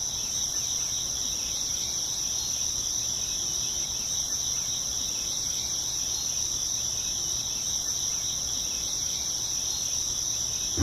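Insect chorus, crickets trilling in one steady high-pitched drone that does not break, over a faint low hum.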